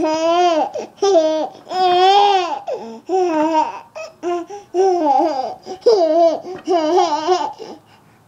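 Five-month-old baby laughing in a string of high-pitched, gliding vocal bursts, each under a second long, about eight in a row, stopping shortly before the end.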